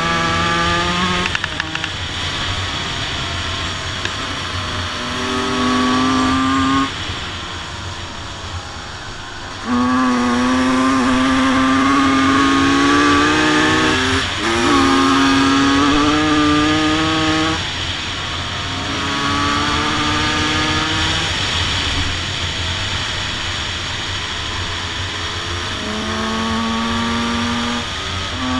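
Two-stroke motocross bike engine heard from on board, revving up and down under throttle: its pitch climbs several times, then drops sharply as the throttle is shut or the gear changes.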